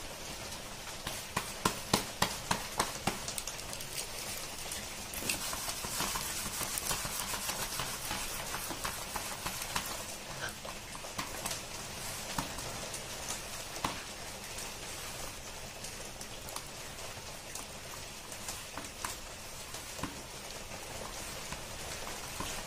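Palms patting a ball of ragi (nachni) bhakri dough flat on a flour-dusted steel plate: quick slaps about three times a second for the first three seconds, then a steady soft rubbing with the odd tap as the hands press and spread the round out.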